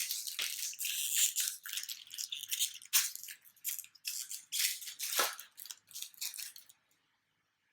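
Foil wrapper of a Pokémon booster pack being torn open and handled, crinkling in a quick run of sharp crackles that stops about seven seconds in.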